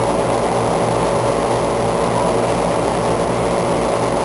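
Steady rush of air and low hum from the fans driving a man-made mist tornado exhibit, running without change.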